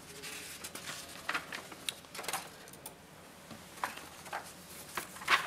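A few faint clicks and light taps from handling at a lectern, over quiet room tone.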